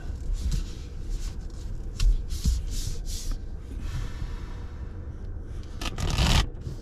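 Footsteps crunching on dry ground, a series of short irregular steps with a louder scuff just after six seconds in, over a steady low rumble of wind on the microphone.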